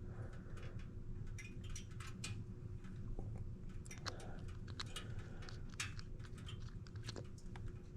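Light, irregular clicks and taps of small objects being handled, over a steady low hum.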